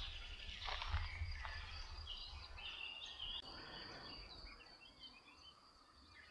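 Small birds chirping in short, scattered calls, mostly from about two seconds in, over a faint steady high hiss. In the first couple of seconds there is a low rumble and two brief rustles, as of walking and wind on the microphone.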